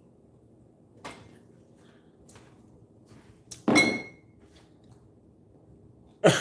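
A glass beer bottle set down on a countertop: a sharp clunk with a brief glassy ring about four seconds in, after a fainter tap about a second in. A voice starts up, laughing, right at the end.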